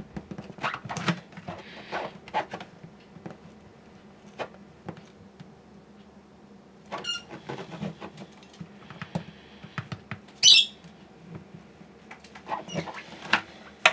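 Thin steel knife worked under the glued bridge of a Martin D-28 acoustic guitar, scraping and clicking in short irregular bursts as it breaks the old glue joint. One sharper, louder, higher scrape about ten and a half seconds in.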